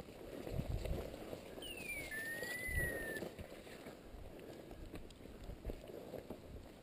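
Footsteps crunching through dry mountain scrub, with one whistled note about two seconds in that glides down, then swells and falls again before stopping after about a second and a half.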